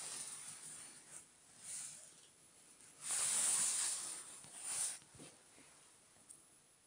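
A muzzled pit bull puppy breathing hard through its nose in hisses: one long, loud exhale about three seconds in, and a shorter one near five seconds.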